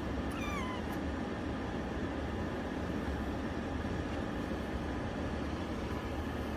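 Steady low rumble of background noise, with one short, falling kitten meow about half a second in.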